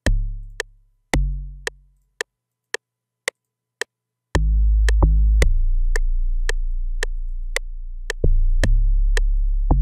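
Electronic amapiano beat playing back from a music program: deep synth bass notes over a sharp percussion tick about twice a second. Two short bass hits die away near the start, then longer held bass notes come in about four seconds in.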